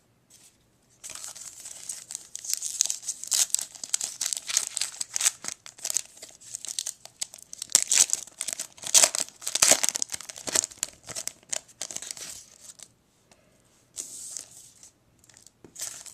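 Plastic trading-card pack wrapper being torn open and crinkled by hand, a dense run of crackling from about a second in until near the end, then a shorter burst after a brief pause.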